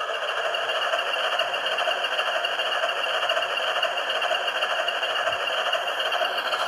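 Model diesel locomotive running on DCC power: the sound decoder's diesel engine sound through its small speaker, a steady thin mechanical drone with little bass, together with its motors running.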